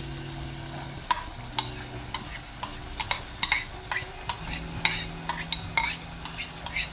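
Diced bell pepper sizzling in oil and butter in a saucepan, with a spoon clicking and scraping repeatedly against the bowl and the pan's rim as the pepper is scraped in, several sharp clicks a second from about a second in.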